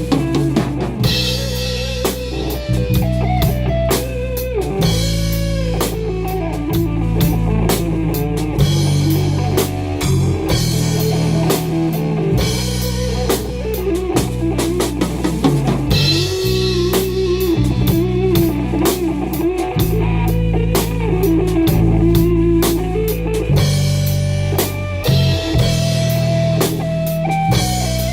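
Band playing a song: drum kit with steady cymbal and bass-drum strokes, a guitar carrying a bending melodic line, and a bass holding low notes that change every few seconds.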